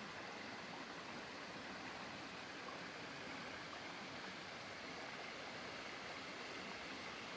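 Mountain stream running over rocks and small rapids: a steady, even rush of water.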